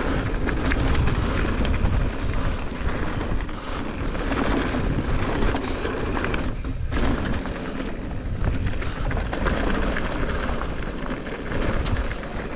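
Mountain bike tyres rolling fast over loose rocky gravel, with a steady rush of wind on the microphone and scattered clicks and rattles of stones and bike parts. The noise drops briefly about halfway through.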